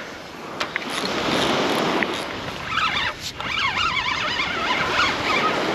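Surf washing on the beach and wind on the microphone, with a few light handling knocks in the first two seconds. From about three seconds in, faint wavering high-pitched sounds come and go over the surf.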